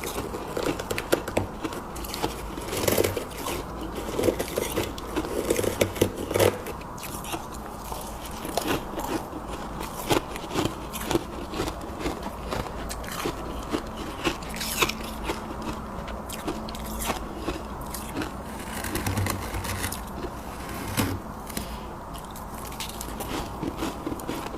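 Close-up biting and chewing of soft freezer frost and ice chunks: a run of crunches and fine crackling, busiest early on and again a few seconds before the end.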